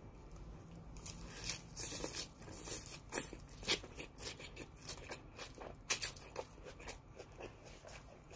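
Close-up crunching and chewing of a mouthful of crisp salad greens: an irregular run of sharp, wet crunches, several a second, beginning about a second in.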